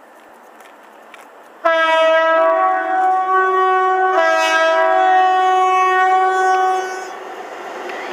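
Class 60 diesel locomotive's two-tone horn sounded in two long back-to-back blasts, starting about a second and a half in and stopping about seven seconds in. After the horn the rumble of the locomotive and its wagons grows louder as the train closes in.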